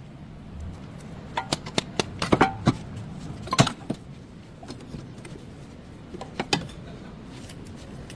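Metal tools and parts clinking and clanking at irregular intervals, about a dozen sharp strikes, most of them between one and a half and four seconds in and a couple more about six and a half seconds in.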